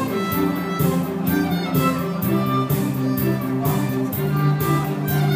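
A violin playing a melody live over a recorded pop backing track, with bass and a steady drum beat of about two strokes a second.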